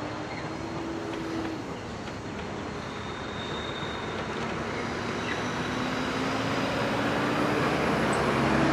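KiwiRail DFB-class diesel locomotive running as it passes with a train of rebuilt ex-British Rail Mk2 coaches. Its engine note grows louder toward the end as the locomotive comes nearest.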